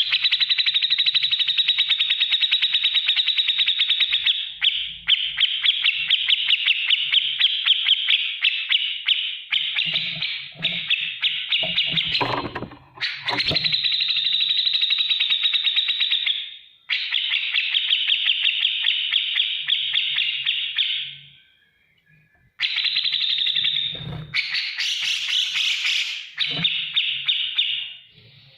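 Cucak jenggot bulbul singing its 'ngetik ngipik' song: long runs of very fast, ticking chatter, each run lasting several seconds with short breaks between them. A few faint low knocks sound under the song.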